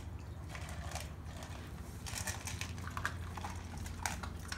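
A small dog crunching dry kibble from a stainless steel bowl, with irregular crunches and clicks of kibble against the metal, over a steady low hum.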